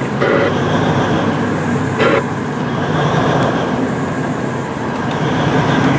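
Heavy diesel engine of large mining equipment running steadily, a deep rumble, with two short louder bursts, about a quarter second in and about two seconds in.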